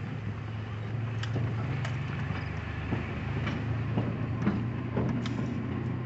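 A car on the move: a steady low engine and road hum, with scattered small knocks and rattles.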